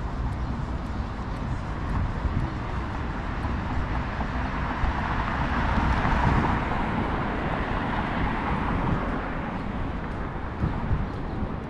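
A vehicle passing on a city street: its road noise swells to a peak about halfway through, then fades. Under it runs a steady low traffic rumble.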